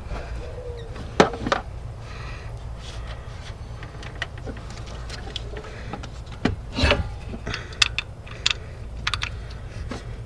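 Hand tools and bolts clinking and rattling while an air-oil separator bracket is bolted into a car's engine bay: irregular sharp metal clicks and jingles, the loudest near the start and around the middle, over a low steady hum.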